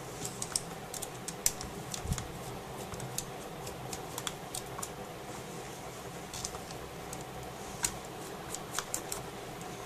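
Light, irregular clicks and ticks of a small precision screwdriver working the tiny screws on the side bracket of a laptop LED screen panel, with the panel's metal frame being handled.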